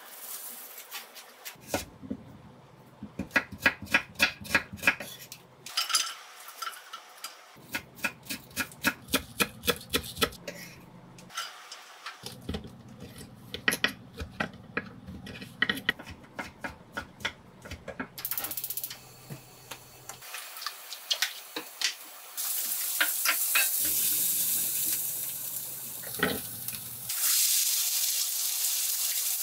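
Chef's knife chopping stacked fish cake sheets on an end-grain wooden cutting board, quick even cuts of about four a second in several runs. From about two-thirds of the way through, fish cake and onion sizzle steadily in a wok.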